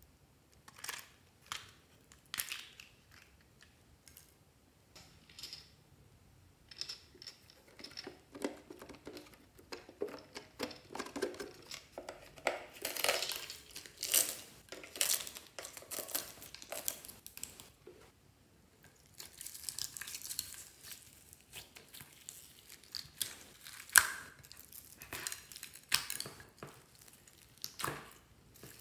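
Hands handling plastic toys and small crunchy add-ins over glass trays of slime: scattered clicks, crinkling and rustling, with one sharp click near the end.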